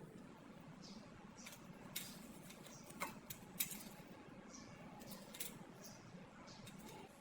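A few short, sharp clicks and taps, the loudest about three and a half seconds in, over a faint steady hiss.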